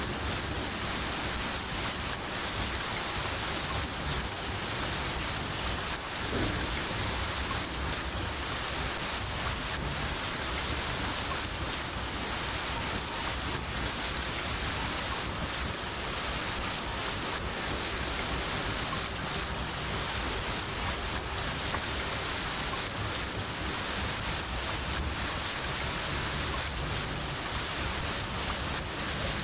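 A cricket chirping in a steady, even rhythm over the hiss of falling rain, with a low rumble of thunder underneath.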